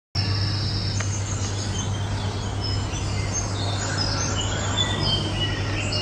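Birds chirping in short, high calls scattered throughout, over a steady low hum.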